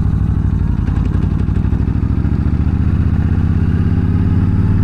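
Yamaha V-Star 1300's V-twin engine pulling the motorcycle up to speed after a turn, its pitch rising steadily over the second half.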